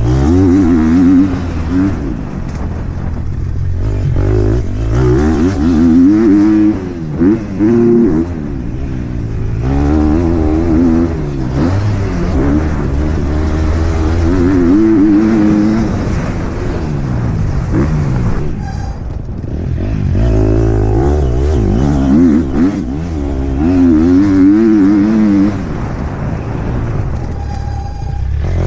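Motocross bike engine revving up and dropping back over and over as the rider works the throttle around the track, with a couple of brief dips where the throttle is shut off.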